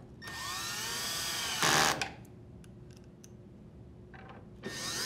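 Cordless drill driver with a Phillips bit driving a screw into a washer's plastic control panel. The motor whine rises in pitch for about a second and a half and ends in a short, louder burst as the screw runs home, then stops. A few faint ticks follow, and near the end the driver starts up again on the second screw.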